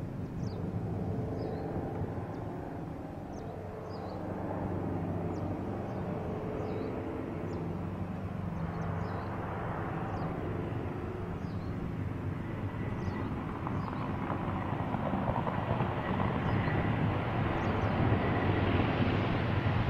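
Lockheed Super Constellation's four Wright R-3350 radial piston engines and propellers droning on landing approach, growing louder as the aircraft comes nearer. Faint high chirps repeat about once a second.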